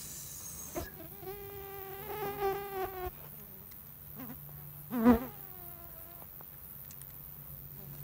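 A flying insect buzzing close by with a steady, slightly wavering drone that comes and goes. It gives a short, loud buzz about five seconds in.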